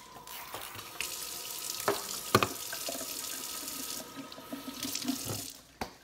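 Water running from a kitchen faucet's pull-down sprayer onto a bundle of cotton curtains to dampen them, with a couple of sharp knocks about two seconds in. The water stops shortly before the end.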